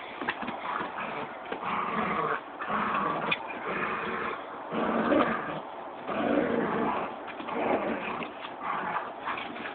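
Border collies play-fighting, growling and snarling in irregular rough bursts as they wrestle, with claws clicking on wooden deck boards.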